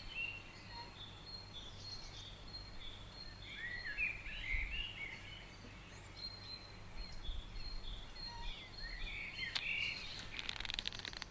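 Small songbirds singing: short warbling phrases come several times over a run of quick, high repeated notes. A brief rattling burst comes near the end.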